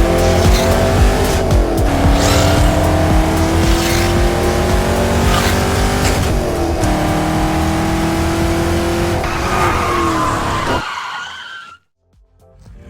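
Car engine revving up and shifting gears, its pitch climbing slowly and dropping back at each of two gear changes, with tyre squeal. It cuts off suddenly about a second before the end.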